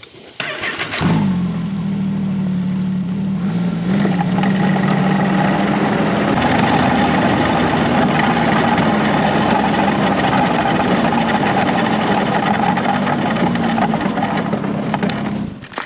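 Snowmobile engine starting about a second in, then running steadily as it is ridden across the ice, with a slight rise in speed a few seconds in. It shuts off just before the end.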